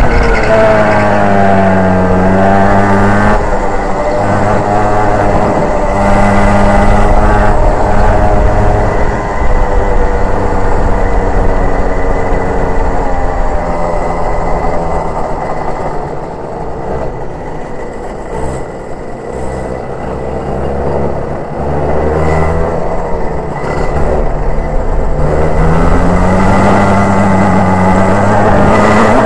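Racing kart engine heard onboard, its note falling and rising over and over as the kart lifts and accelerates through the corners. For several seconds in the second half it drops back and runs quieter and rougher, then climbs steadily in pitch again near the end. A faint steady high whine runs underneath.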